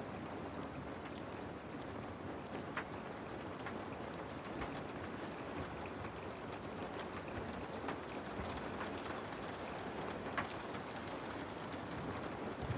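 Steady rain falling against a window pane, an even hiss with scattered individual drops ticking on the glass.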